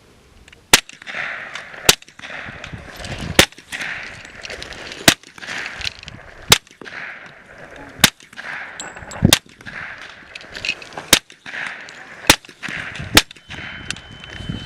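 Suppressed Kriss Vector .45 ACP short-barrelled rifle firing about ten single shots at a steady pace, roughly one every second and a half.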